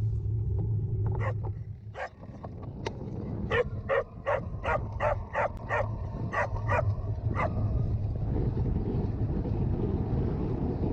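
Dog barking: a few single barks, then a quick run of about a dozen barks in a row a few seconds in, over a steady low rumble of wind on the microphone.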